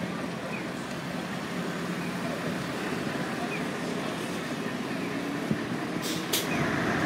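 Busy city street at night: steady traffic noise with the voices of passers-by, and two short sharp clicks near the end.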